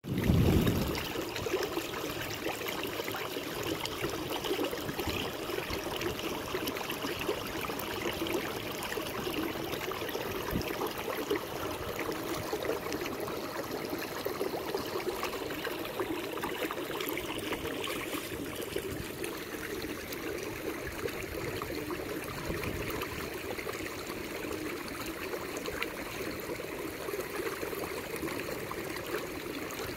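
Water rippling and trickling against a kayak's hull as it moves along the river, a steady wash. A short low thump comes right at the start.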